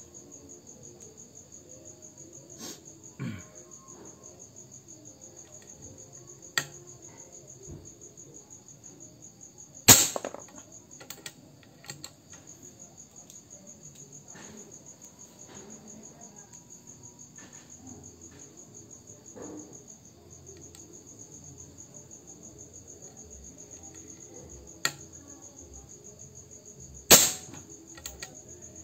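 Two shots from a suppressed Reskal Momentum air rifle, about 17 seconds apart. Each is a single sudden report and is the loudest thing heard. Lighter clicks come a few seconds before each shot, over steady cricket chirping.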